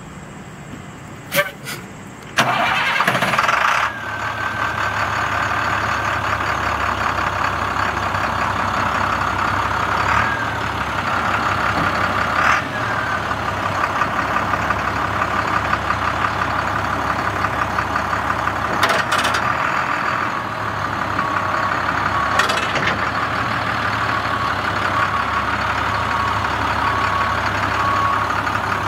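International DT466 inline-six diesel in a 2005 International WorkStar 7400 dump truck, started with a click and a short crank about two seconds in. It runs loud for a second or so as it catches, then settles into a steady idle.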